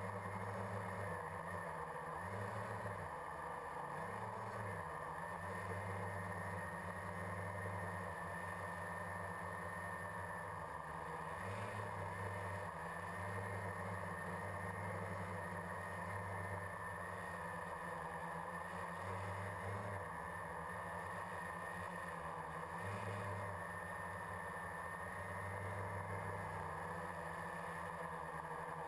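Quadcopter's electric motors and propellers droning steadily, heard from the GoPro carried on it, with the pitch wavering now and then as the rotor speeds change.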